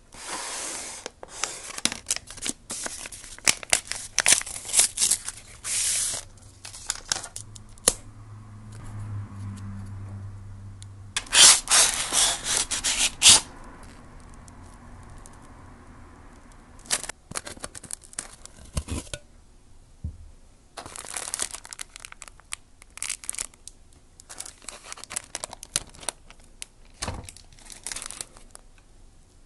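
A paper seal strip being peeled and torn off a cardboard bento box, followed by rustling and scraping of the cardboard packaging and the plastic bento tray as it is unpacked and its lid taken off. The noise comes in irregular bursts, with the loudest tearing and rustling stretch a little over a third of the way through.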